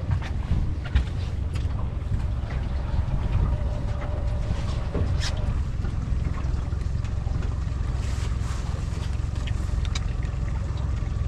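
Steady low rumble of wind and boat noise on the microphone, with a few light clicks and knocks as a crab is handled and held against a plastic crab gauge.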